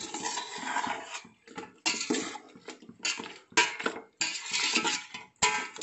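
Metal spoon scraping and clinking against a stainless steel pot as chicken pieces are stirred, in a series of short strokes with brief pauses between them.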